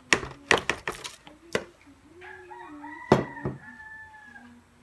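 Several sharp knocks of a utensil against the mixing bowl as sticky mashed steamed squash is scraped and tapped off, the loudest about three seconds in. From about two seconds in, a rooster crows once for about two seconds.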